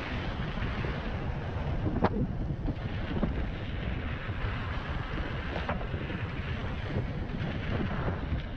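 Wind buffeting the microphone while riding an electric unicycle at speed, a steady rush of noise, with a few brief knocks, the sharpest about two seconds in.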